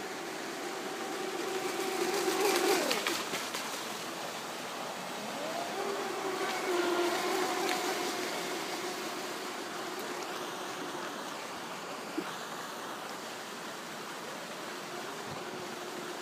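High-pitched whine of an RC jetski's 2600kv brushless electric motor running at speed. It swells about two and a half seconds in, where the pitch falls sharply, then rises again and peaks around seven seconds. Steady rushing of water from an outfall pouring into the pond runs underneath.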